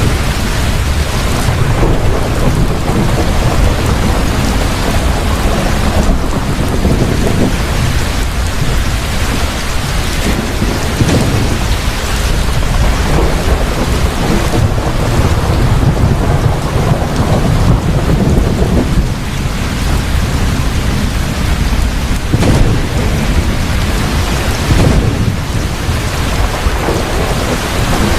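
Heavy rain falling steadily, with low rolling thunder rumbling under it.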